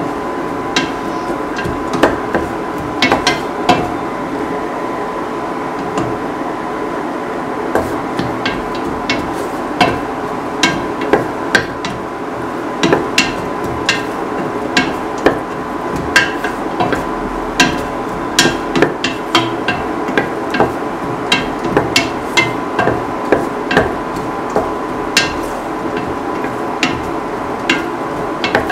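Spatula knocking and scraping against a metal pan while stirring a sauté: irregular sharp clacks, about two a second, over a steady background noise.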